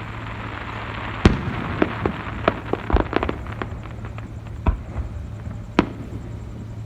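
Aerial fireworks bursting: about eight sharp booms and cracks at uneven intervals, the loudest about a second in and a quick cluster around the middle. A low steady hum runs underneath.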